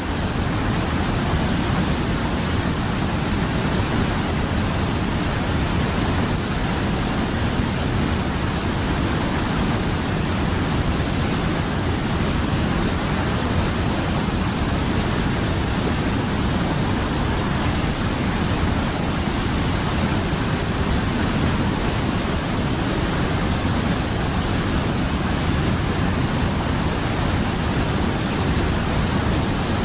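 Mountain river flowing steadily: a dense, even wash of running water with no let-up.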